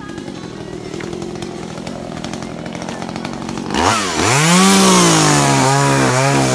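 A small two-stroke engine running. It starts as a steady hum that grows louder, then is revved hard a little under four seconds in: the pitch sweeps up, eases back and holds steady.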